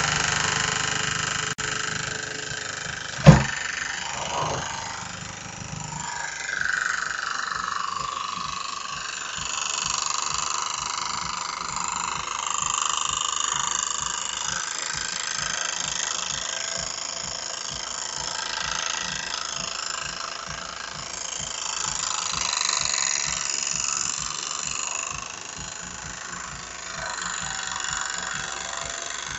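Electric starter motor spinning a small homemade brass-and-copper piston engine with no combustion: steady mechanical whirring and clatter from the moving parts. A sharp click about three seconds in; about six seconds in the low hum gives way to a rapid, even ticking.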